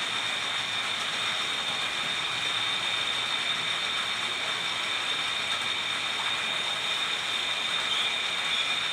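Lathe running steadily: an even mechanical noise with a constant high-pitched whine.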